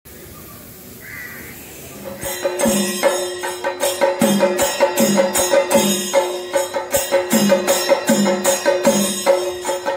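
Chenda melam, the Kerala temple drum ensemble of chenda drums and cymbals, starting up loudly about two seconds in: a dense stream of fast drum strokes with cymbal shimmer, held steady tones, and a deeper beat recurring about every two-thirds of a second.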